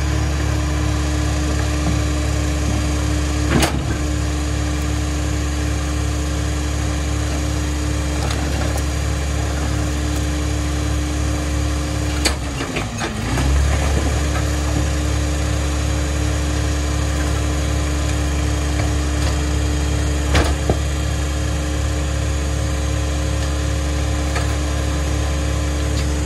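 Diesel engine of a New Way rear-loader garbage truck running at raised revs with a steady whine while the packer works. About halfway through it drops back, dips in pitch, then revs back up. Two sharp knocks stand out, once early on and once about three-quarters of the way in.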